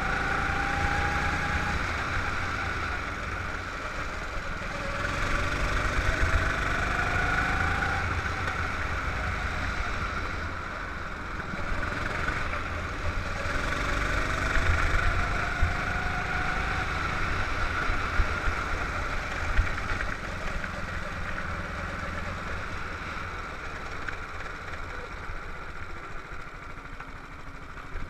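Go-kart engine heard from on board the kart, its note climbing in pitch several times as it accelerates along the track and falling back in between, easing off and running quieter toward the end.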